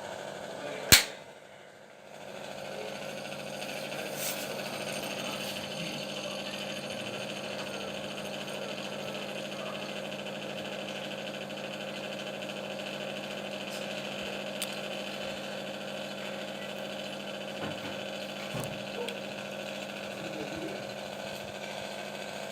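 A single sharp, loud click about a second in, followed by a steady mechanical hum with a constant pitch that fades briefly and builds back up over the next couple of seconds.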